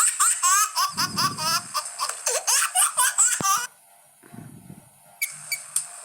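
Baby laughing in quick repeated giggles: a baby-laughter notification tone played back on a phone. It stops abruptly about three and a half seconds in.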